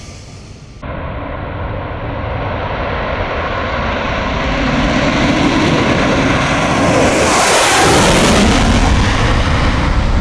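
F-35A Lightning II fighter's single Pratt & Whitney F135 jet engine on a gear-down landing approach, loud jet noise that starts abruptly about a second in and swells as the jet closes in. It peaks as the jet passes overhead about seven to eight seconds in, with the pitch dropping as it goes by.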